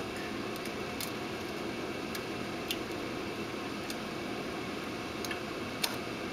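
Scattered light metallic clicks and ticks as film is threaded through the head of a reel-to-reel film projector, the sharpest click coming near the end, over a steady fan hum.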